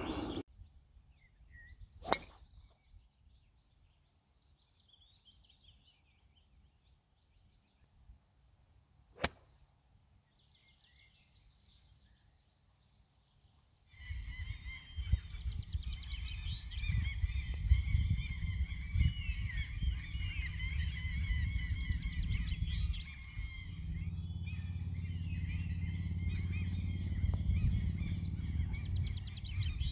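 Two sharp single cracks of a golf club striking the ball, some seconds apart, with faint bird chirps between. From about halfway, many birds chirping and singing over a steady low wind rumble on the microphone.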